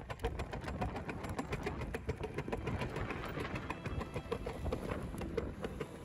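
Ride-on cart rolling fast over a concrete sidewalk while being pulled by a dog: a steady rumble from the wheels with a dense run of quick rattling clicks.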